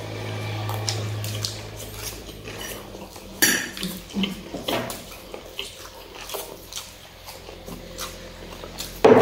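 Metal forks clinking and scraping on plates of chow mein while people eat fast, with scattered small clicks and one sharp clink about three and a half seconds in. A low hum runs through the first two seconds.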